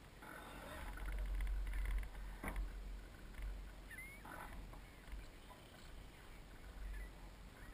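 Water splashing and lapping against the hull of a 1-meter Soling model sailboat under sail, over a low rumble, louder in the first couple of seconds. A single sharp knock about two and a half seconds in.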